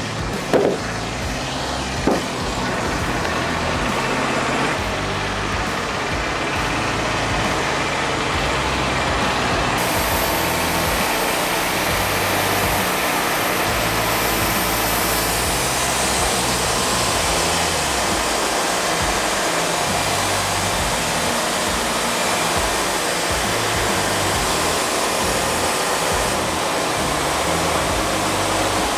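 Wood-Mizer LT40 Wide band sawmill running steadily as it saws a monkey pod log. A couple of wooden knocks come early as a cut slab is handled, and a brighter hiss joins about ten seconds in. Background music plays underneath.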